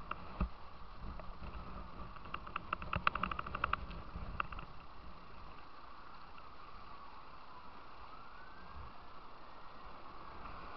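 Rushing white water on a kayak course, heard from close to the surface. A low thump comes about half a second in, and a quick run of ticks about two to four seconds in.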